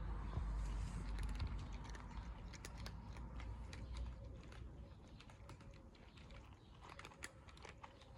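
Cats chewing their food: a stream of irregular, crisp clicks. A low rumble underneath fades away over the first few seconds.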